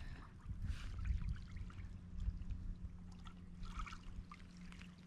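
Faint outdoor ambience: a low, uneven rumble with light scattered crackles and ticks.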